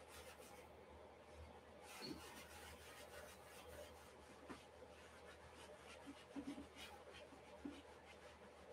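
Faint scratchy rubbing and dabbing of a paint sponge against a stretched canvas as acrylic paint is worked in, over a steady low hum.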